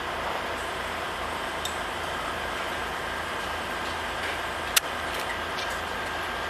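Mobile crane's engine running steadily at an even pitch, with one sharp knock about three-quarters of the way through.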